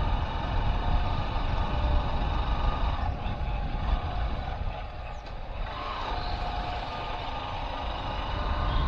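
A vehicle travelling along a road: a steady low rumble of engine and road noise with a high whine over it. The whine rises briefly about six seconds in.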